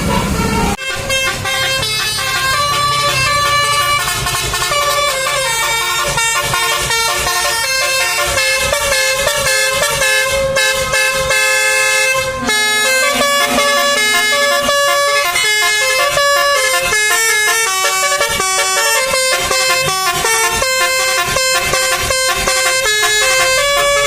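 Bus 'telolet' basuri horn playing a fast tune, its multi-tone notes changing several times a second. It starts abruptly about a second in.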